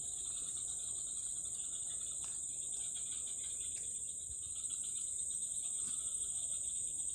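Steady chorus of insects in riverside vegetation, a continuous high-pitched buzz that does not let up.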